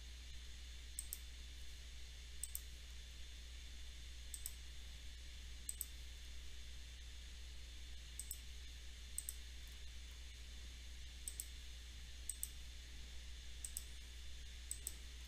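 Computer mouse clicking about ten times, each a quick press-and-release pair, one to two seconds apart, over a steady low hum.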